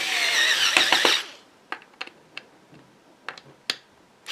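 Handheld power drill driving a wood screw into a pine board, the motor whirring with its pitch sagging under load, stopping about a second in. A few light clicks and taps follow.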